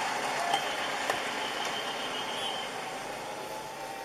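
Steady road traffic and engine noise heard from inside a car, slowly fading, with two faint clicks in the first second or so.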